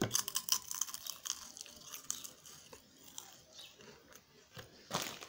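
Crunching and chewing of crispy snack chips in the mouth: a dense run of crackles, thickest in the first second, with a louder crunch near the end.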